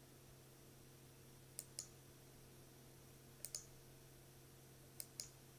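Computer mouse button clicking: three quick double clicks, spaced about a second and a half apart, over a faint steady electrical hum.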